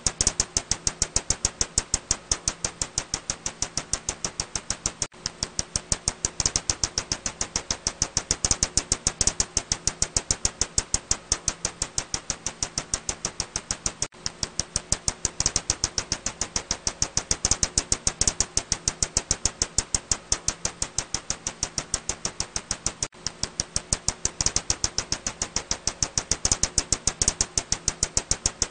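Ussuri bat echolocation calls made audible: a rapid, very regular train of sharp clicks, about six a second, over a faint steady hum, with a brief break about every nine seconds.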